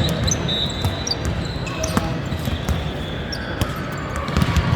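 Busy indoor court: balls knocking sharply on the floor again and again, with short high squeaks of shoes, over a steady hubbub of voices.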